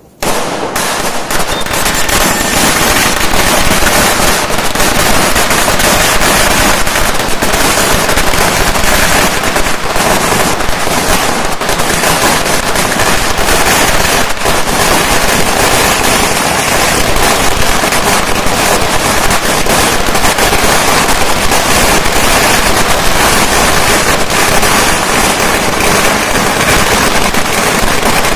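Firecrackers going off in a dense, continuous crackle of rapid sharp bangs. It starts suddenly just after the beginning and keeps up at a steady loud level without a pause.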